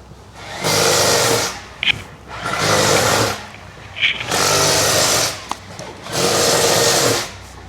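A small power tool run in four short bursts of about a second each, roughly two seconds apart, with a whirring hum inside each burst.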